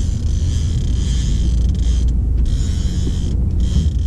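Wind buffeting the microphone on an open boat: a steady low rumble with a hiss over it, dipping briefly a couple of times.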